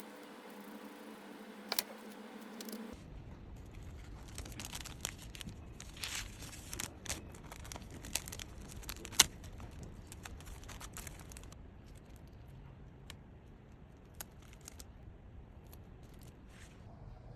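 Crinkling and crackling of a squishy toy being squeezed and handled, with scattered sharp clicks; it thins out near the end.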